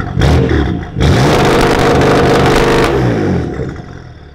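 BMW M4's twin-turbo straight-six, through catless downpipes and an AWE non-resonated Track Edition exhaust, revving in launch control with the car standing still. After a quick blip, the revs climb and hold high for about two seconds, then fall back toward idle.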